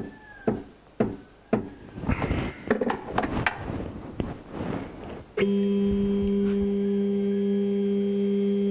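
A series of sharp taps knocking the metal fixture plate on the mini mill's table into square. About five seconds in, the mill's X-axis stepper motor starts and runs at a steady pitch, a constant whine.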